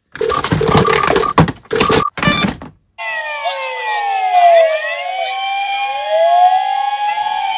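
Plastic toy police cars rattling and knocking as a hand rummages through a box of them; about three seconds in, many battery-powered toy police cars start sounding electronic sirens at once, their wails overlapping and rising and falling in pitch.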